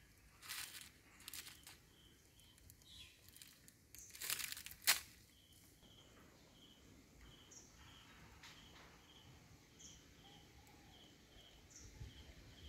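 A monkey crinkling a plastic snack wrapper in short bursts, loudest about four to five seconds in. A faint high chirp repeats about twice a second in the background.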